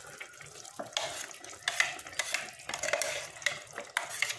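Thick ground coconut masala paste being scraped out of a mixer jar into a pot of boiled brinjal: irregular utensil scrapes and clinks starting about a second in, over the pot simmering.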